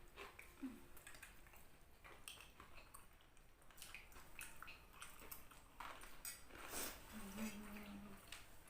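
Faint, scattered clinks and scrapes of eating utensils against a plate during a meal, with a short low hum about seven seconds in.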